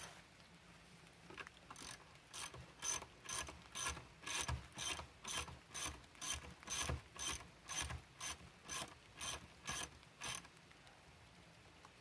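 A ratcheting hand tool worked at a car's wheel during a tire change: a steady run of ratcheting strokes, about two a second, that starts a couple of seconds in and stops near the end.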